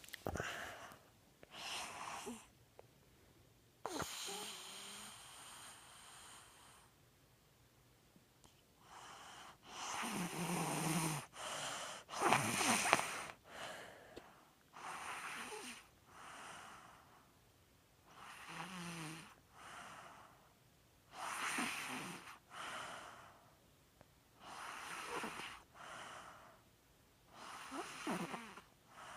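Snoring in sleep: a noisy breath about every two to three seconds, most of them in two parts close together, with quiet between breaths.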